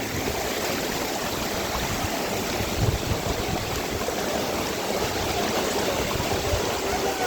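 Floodwater rushing past, a steady unbroken rush with a low rumble underneath.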